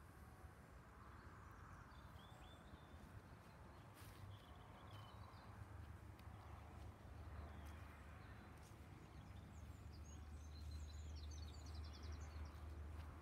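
Faint outdoor ambience: a steady low rumble with a few scattered bird chirps, and a short rapid bird trill near the end.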